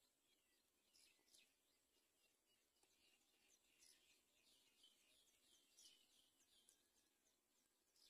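Very faint, thin, high-pitched chirps of nestlings begging in the nest, each a quick downward sweep, coming in a rapid run through the middle.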